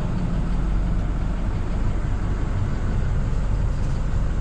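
Plow truck's engine running steadily at rest, a low, even rumble.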